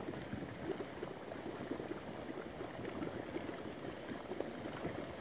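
Geothermal mudpots bubbling, a dense, irregular stream of low plops and gurgles of mud.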